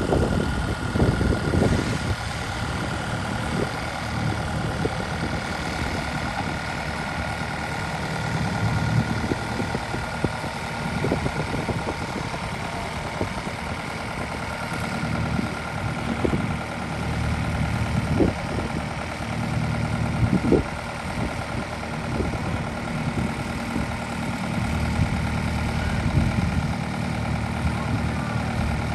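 An engine idling steadily, with a few sharp knocks and clanks over it.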